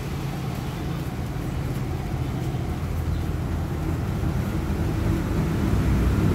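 Corded electric hair clippers buzzing steadily, getting louder toward the end.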